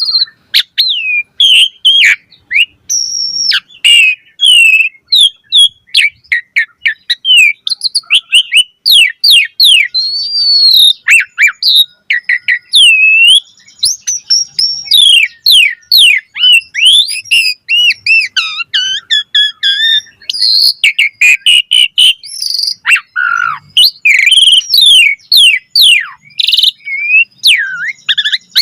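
Asian pied starling singing continuously: a fast, varied medley of clear whistles, rising and falling glides and quick chattering trills with almost no pauses.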